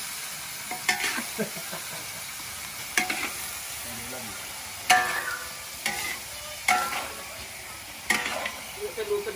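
Cubed pork belly sizzling in a large steel wok, with a metal spatula stirring, scraping and clanking against the pan every second or two. About six clanks; the loudest, about five seconds in, leaves the wok ringing briefly.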